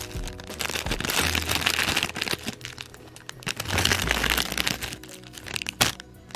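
Cellophane bag and tissue paper crinkling in several spurts as they are handled and unwrapped, with a sharp crackle near the end. Soft background music plays underneath.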